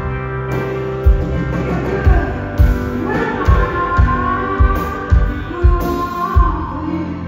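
Live band playing a slow rock song: electric guitar and held chords, with a kick drum beating about twice a second from about two seconds in. A woman sings into the microphone over it.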